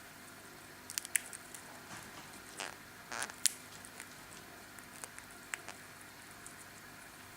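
Small scattered clicks and a few short squishy crunches, mostly in the first half: a cobalt-winged parakeet nibbling and cracking food with its beak.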